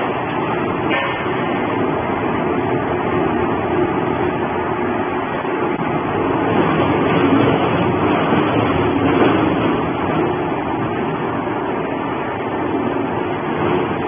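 Industrial shredder running with cardboard boxes in its cutting chamber: a loud, steady mechanical din with a low hum, a little louder about halfway through.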